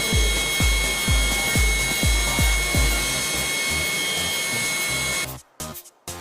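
A deburring tool grinding steadily, a hissing noise with a high, steady whine, under an electronic music track with a thumping kick beat about twice a second. The machine sound cuts off about five seconds in, leaving only choppy stop-start music.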